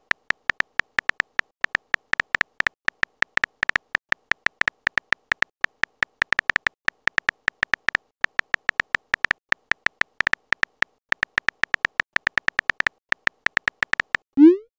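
Simulated phone-keyboard typing sound effect: rapid, irregular key-tap clicks, several a second, each with a slight high tone. Near the end a short rising swoop as the typed message is sent.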